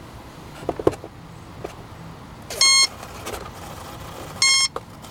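E-flite 40-amp brushless speed controller beeping through the Park 480 outrunner motor: two short, steady high beeps about two seconds apart. With the throttle held at full, these beeps mark the controller's programming mode.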